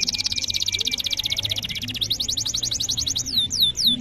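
Male domestic canary singing a long rolling song: a very fast high trill, changing about halfway to a slightly slower trill of repeated notes, then a run of falling whistled notes near the end.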